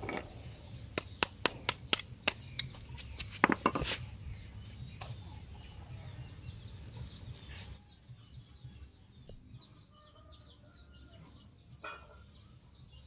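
A quick run of about eight sharp taps in the first four seconds, then a quieter stretch with chickens faintly clucking and small birds chirping.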